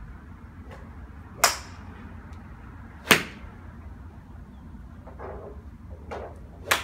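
Golf clubs striking balls off driving-range mats: three sharp cracks, the first about a second and a half in, the second about three seconds in, the third near the end.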